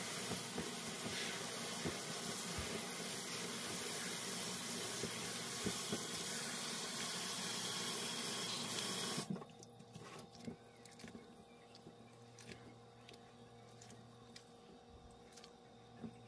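Kitchen tap running into a stainless-steel bowl of barley malt in a steel sink, pouring water on the malt to make malt water, then cutting off suddenly about nine seconds in. After that, faint sloshing and squishing of hands kneading the malt in the water.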